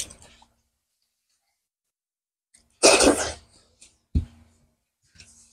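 A person eating noisily by hand: one short, loud, breathy mouth burst about three seconds in, followed by a few soft mouth and chewing sounds.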